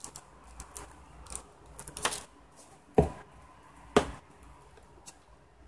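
Objects being handled and set down while rummaging in a box: three sharp knocks about a second apart, with a few fainter clicks between them.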